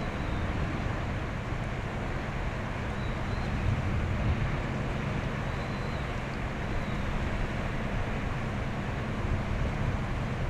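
Steady low rumble of a passing container ship's diesel engine, mixed with wind on the microphone. Faint short high whistles come and go.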